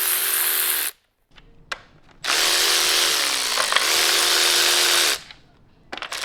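Handheld electric power tool running in short bursts while engine bolts are taken out during a teardown: one burst stopping about a second in, a longer one of about three seconds whose pitch dips briefly in the middle, and another starting at the very end, with small knocks in the pauses.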